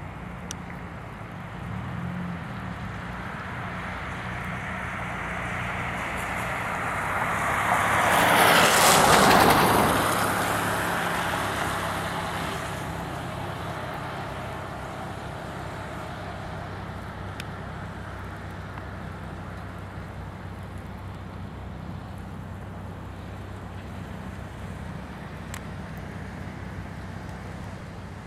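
A vehicle passing close by on a wet road, its tyre hiss building to a peak about nine seconds in and then fading away. Under it runs a steady low engine hum.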